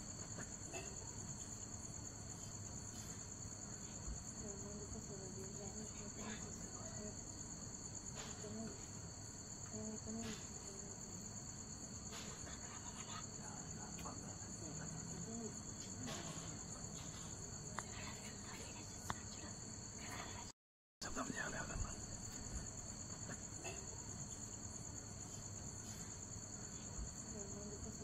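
Crickets trilling in a steady, high-pitched night chorus that never changes pace. The sound cuts out completely for a split second about three-quarters of the way through, then resumes.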